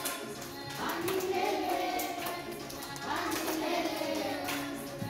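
A class of young children singing a Swahili children's praise song together in sustained sung phrases, clapping their hands along.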